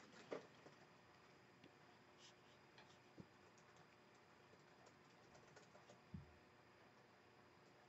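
Near silence: room tone with a few faint, scattered light clicks and a soft thump about six seconds in.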